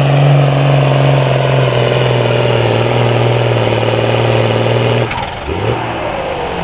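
Farm pulling tractor's engine running hard at a steady high speed under load. About five seconds in it cuts off abruptly to a quieter engine sound with a short rising whine.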